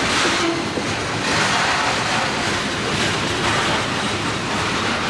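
A train's cars rolling past: a steady, loud rush of steel wheels running on the rails.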